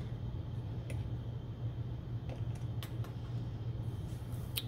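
A few light clicks and taps as a soldering iron and a plastic solder-wire tube are handled and set down on a desk, over a steady low hum.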